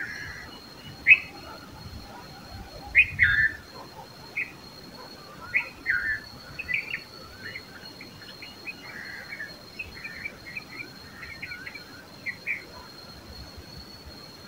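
Red-vented bulbuls calling: short, scattered chirps and quick runs of notes, louder near the start and about three seconds in. A faint steady high whine runs behind them.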